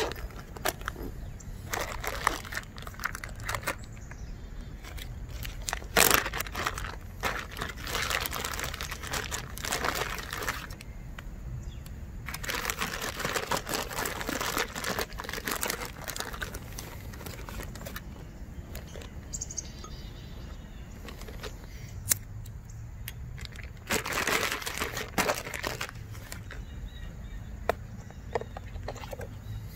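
Gear being handled: nylon backpack fabric and a mesh pouch rustling, and a zip-top plastic bag crinkling, in irregular bursts with scattered clicks.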